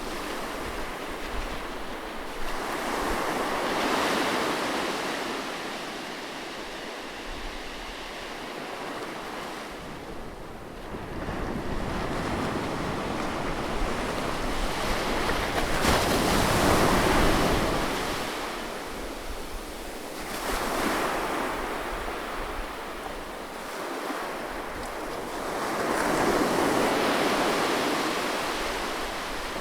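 Sea waves washing ashore, swelling and ebbing in slow surges every several seconds, with wind in the background.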